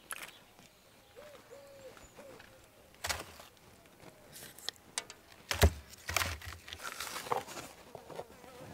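Split firewood being laid inside a domed wood-fired oven: several separate knocks and clunks of wood on wood and on the oven floor, the loudest about five and a half seconds in.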